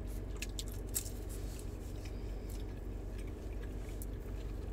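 A person chewing food close to the microphone, with soft scattered clicks and smacks of the mouth, over a steady low hum.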